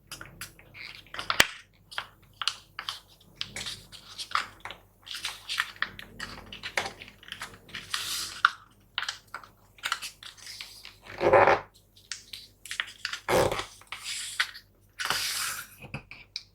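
A sheet of paper being folded and creased by hand, rustling and crinkling in short irregular bursts, with two louder swipes near the end.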